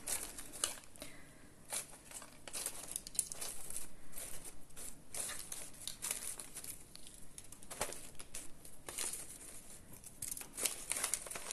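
Rustling and crinkling of paper and packaging handled at close range while scrapbooking flowers are picked out, a run of irregular crackles and ticks.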